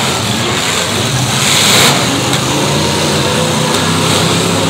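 Several demolition derby pickup trucks' engines running and revving together in a dirt arena, swelling louder for a moment just under two seconds in.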